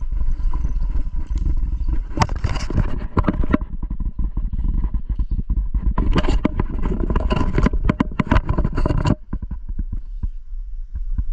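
Rustling and clattering noise over a steady low rumble, like a phone being handled and knocked about. It comes in dense stretches about two seconds in and again from about six to nine seconds in, then thins out.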